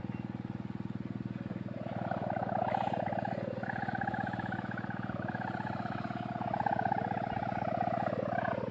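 Kite sendaren (wind hummer) droning in the wind with a snoring sound: a steady low buzzing drone, joined about two seconds in by a louder, higher hum whose pitch wavers up and down.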